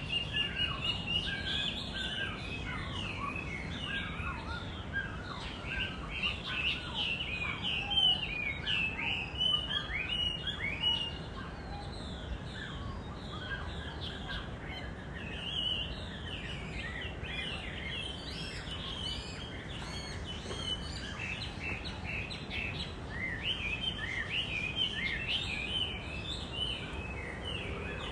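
Many small birds chirping and twittering, short quick chirps overlapping one another, busiest and loudest in the first third. Underneath is a steady low background rumble.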